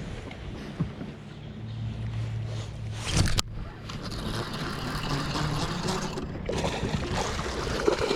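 A boat's motor humming steadily under wind and water noise, with a sharp knock a little over three seconds in.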